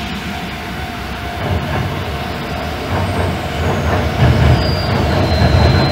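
Sanyo Electric Railway 3000-series electric train crossing a river bridge, its wheels and bridge deck rumbling and growing steadily louder as it approaches.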